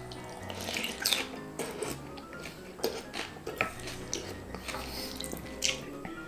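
Slurping of yellow noodles in soup, sucked in off a wooden spoon several times, the loudest about a second in, over background music.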